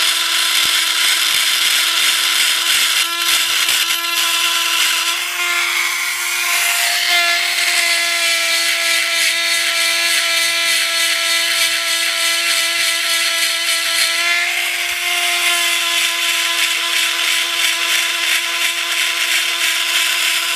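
Small handheld electric chainsaw-chain grinder running with a steady whine, its grinding wheel hissing against the chain's cutter teeth; the pitch shifts a little a few seconds in and again about two-thirds through as the load changes. The grinder is worn out, its bearings rattling.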